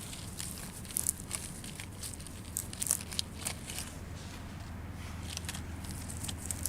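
Leafy garden plants rustling and crackling as they are handled and picked, in scattered short crackles over a steady low background hum.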